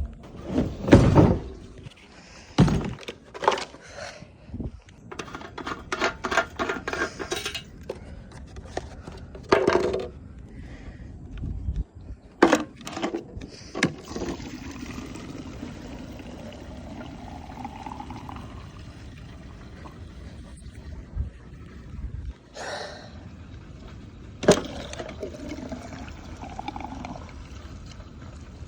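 Clunks and clicks of a gas can and fuel cap being handled, then gasoline pouring into a go-kart's fuel tank: a steady pour whose pitch rises as the tank fills, with a few more knocks.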